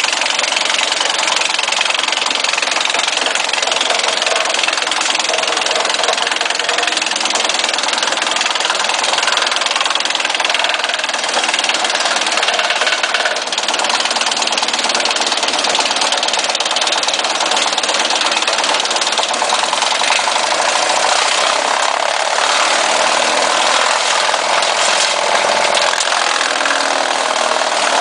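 PTO wood chipper driven by a tractor running steadily: a loud, even mechanical noise from the tractor engine and the spinning chipper.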